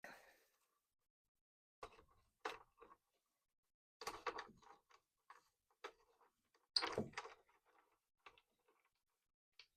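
Scattered light clicks and knocks of small feeder parts being handled and set down, the loudest knock about seven seconds in.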